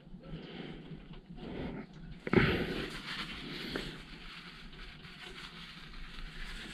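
Faint handling noises from hand work on a diesel fuel filter: a single sharp knock about two seconds in, then soft rustling.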